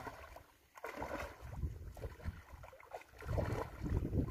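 Shallow pond water sloshing and splashing as several people wade knee-deep and drag a fishing net through it, irregular and louder in the last second or so.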